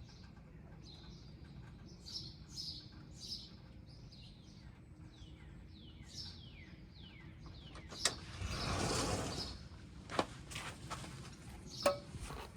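Small birds chirping in short repeated calls, then a run of quick downward-sliding notes. About eight seconds in, a rush of noise lasting over a second is louder than the birds, and a few sharp clicks follow.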